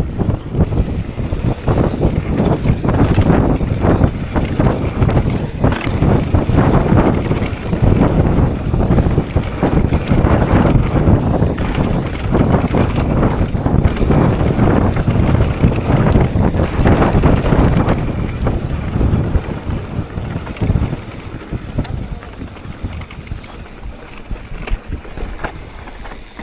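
Wind buffeting the microphone over the rattle and knocking of a mountain bike riding rough downhill trail, with dense irregular knocks throughout; it grows quieter near the end.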